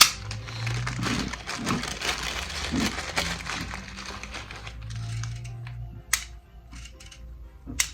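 Small plastic-and-metal clicks and rattling of BBs being pushed one at a time into a spring-fed BB pistol magazine, along with handling of the BBs. The clatter is dense for the first several seconds, then thins to a few single sharp clicks.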